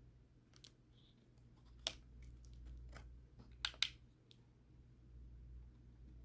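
Small plastic clicks and taps as a laptop battery cable connector is worked into its motherboard socket: a sharp click about two seconds in and a quick pair near four seconds, with fainter ticks between.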